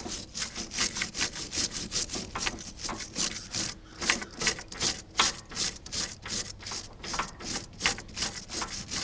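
Wire brush scrubbing tractor battery cable wires clean in quick back-and-forth strokes, about four or five a second.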